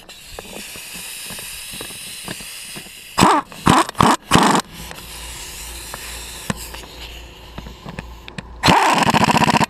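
Pneumatic impact wrench hammering in a rapid rattle for about a second near the end, driving a stiff, dry-threaded bolt into the wheel. Several short loud bursts come about three seconds in.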